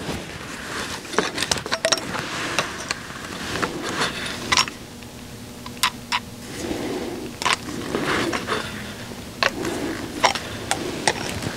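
Irregular clicks, taps and light scrapes of hands working on a rotary tool, retightening the collet on its diamond grinding bit after the bit worked loose.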